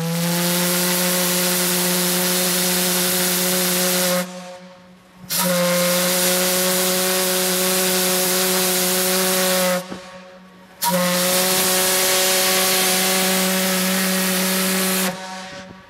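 Steam whistle of the 1910 coal-fired steam tug S.S. Styrbjörn sounding three long blasts of about four seconds each, about a second apart. Each blast is a low, steady note over a rushing hiss of steam.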